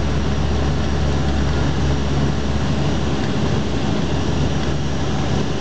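Cabin noise of a Bombardier Dash 8 Q400 on approach: the steady drone of its Pratt & Whitney PW150A turboprop engines and six-bladed propellers, heard through the fuselage as a deep hum of several even tones over a constant rushing hiss.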